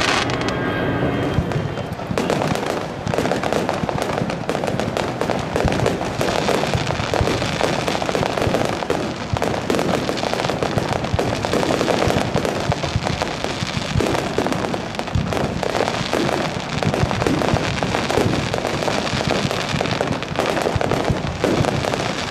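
Fireworks display in a rapid barrage: many shells bursting in quick succession. From about two seconds in the bangs run densely together without a break.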